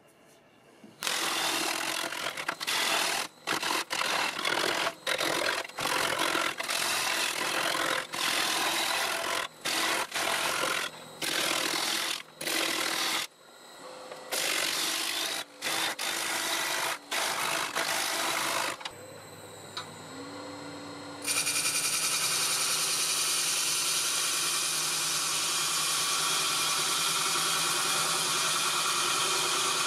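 Turning tool cutting a spinning Leylandii (conifer) log on a wood lathe: a run of short cuts broken by brief gaps, then after a quieter spell with the lathe's hum, one long continuous cut from about two-thirds of the way in.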